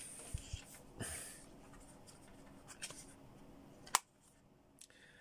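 Faint handling noises of a plastic earbud charging case and its USB cable being taken in hand, with a single sharp click about four seconds in.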